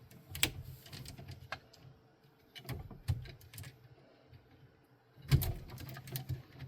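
Scattered light clicks and knocks of plastic 3D-printer parts being handled, with a louder clatter about five seconds in.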